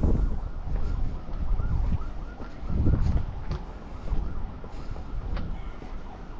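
A faint siren wailing in repeated rising and falling sweeps, over wind rumbling on the microphone.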